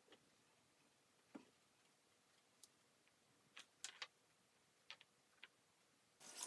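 Near silence: faint room tone with a few scattered faint ticks.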